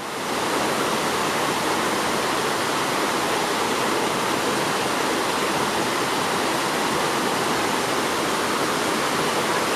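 A steady, even rushing hiss that fades in quickly and holds level throughout.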